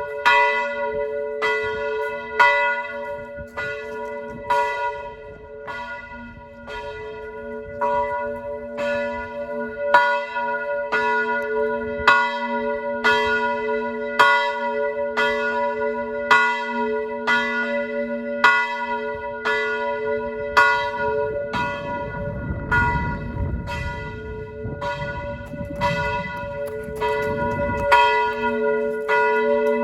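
Church bell ringing, struck again and again in a steady rhythm, its deep hum ringing on between strokes. A low rumbling noise runs underneath for several seconds in the later part.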